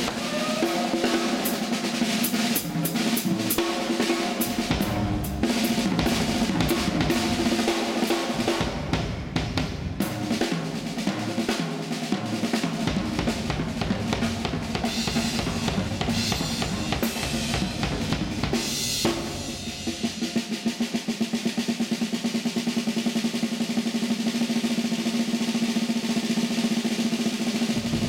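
Drum kit solo played live: fast snare, bass-drum and tom strikes with cymbals, a crash about nineteen seconds in, then a rapid, even snare roll.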